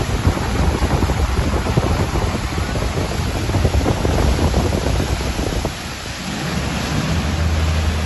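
Wind buffeting the microphone on a moving boat, with a steady low hum of the boat's motor coming up about seven seconds in.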